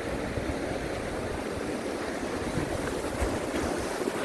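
Sea surf washing against the rocky shore, a steady rushing noise, with wind gusting across the microphone in low rumbles.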